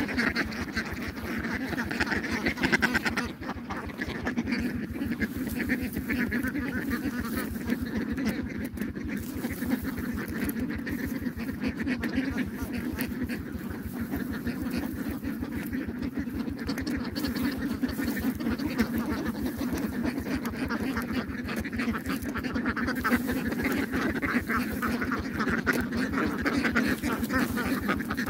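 A flock of ducks quacking steadily, many calls overlapping with no break.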